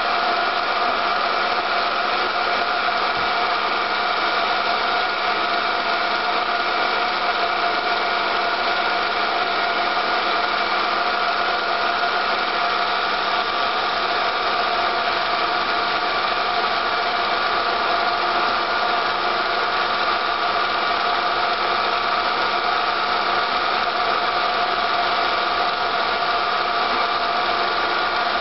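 Film projector running: a steady mechanical whirr with a constant hum that does not change.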